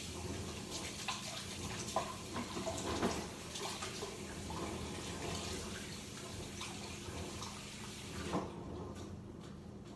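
Kitchen faucet running into the sink while hands are washed under it; the water shuts off about eight and a half seconds in.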